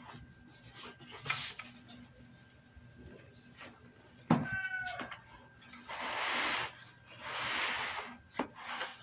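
Cardboard laptop shipping box being handled: light knocks and taps, a thud as the box comes down on the wooden table a little after four seconds in, with a short squeak, then two long scraping rustles of cardboard and the molded pulp packing tray sliding out near the end.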